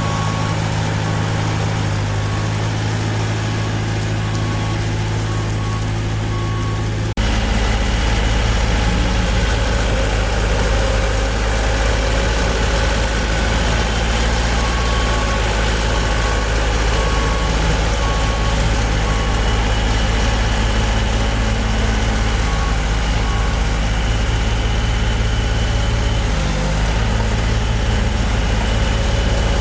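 Heavy diesel engine running steadily at a low rumble, with a repeated short high beeping alarm over it at times. About seven seconds in, the sound changes abruptly to a deeper, louder engine.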